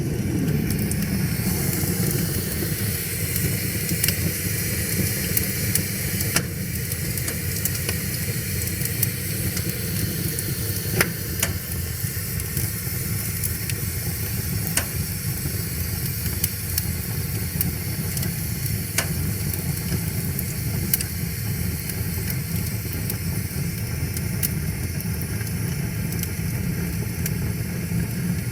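Wood fire crackling, with scattered sharp pops over a steady low rushing of river water.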